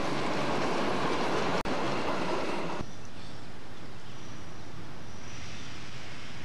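Steam-hauled passenger coaches rolling past close by, a loud steady rush of wheels on rail with a brief dropout about a second and a half in. About three seconds in it cuts abruptly to a much quieter, steady outdoor background.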